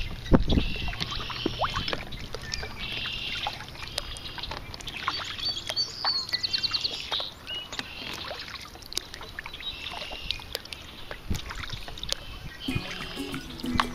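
Several red-winged blackbirds calling and singing over and over, one song ending in a rapid trill about halfway through, with small splashes and knocks from paddling a kayak. Background music comes in near the end.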